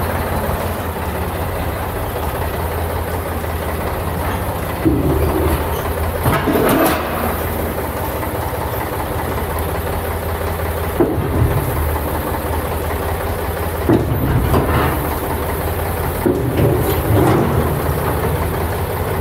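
David Brown 885 tractor's three-cylinder diesel engine running steadily while its front loader works, swelling louder several times as the scoop bucket is raised and tipped to pour sawdust into the stalls.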